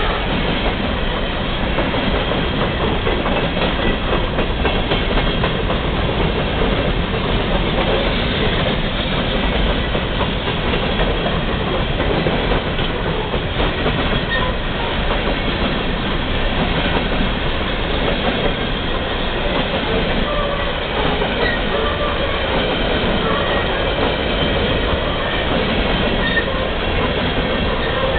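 Freight train hopper cars rolling past close by, their steel wheels running steadily over the rails in a continuous, even clatter.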